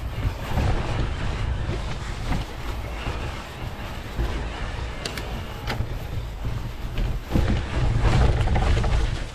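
Wind buffeting the microphone over the rolling noise of an electric mountain bike's tyres on a trail climb, with a few sharp clicks about five seconds in.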